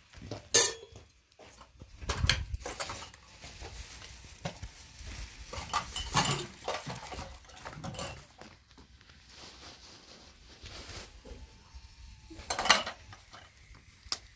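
Aluminium bowls, pans and a metal cup being handled and knocked together, irregular clinks and clanks with a few louder ones, the sharpest near the end.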